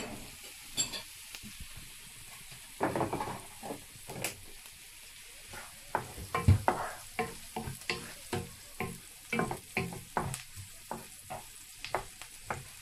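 Diced onion sizzling in butter and oil in a non-stick frying pan, while a wooden spoon stirs it. From about three seconds in, the spoon scrapes and knocks against the pan in quick, irregular strokes.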